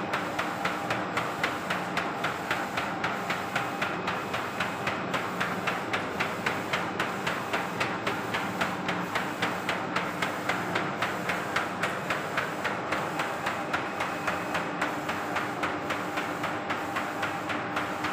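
DTF tunnel powder shaker running: its shaking mechanism knocks in a rapid, even clatter, several times a second, over the steady hum of its motors.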